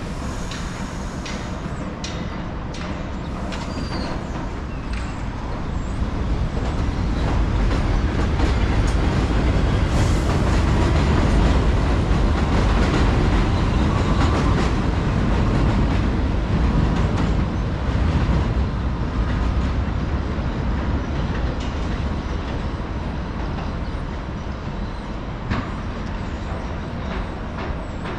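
R62A subway train running past on the elevated track: a steady rumble with wheels clicking over the rail joints. It grows louder to a peak about halfway through, then fades as the last cars move off.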